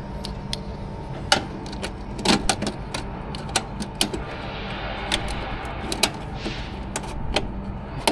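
Irregular small clicks and taps of hands handling wires and plastic terminal blocks in a generator's electrical control panel, over a steady low hum.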